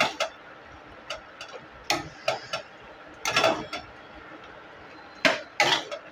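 Spoon clinking and scraping against a cooking pan of cooked Maggi noodles in several short separate knocks, the longest scrapes a little past three seconds in and near the end.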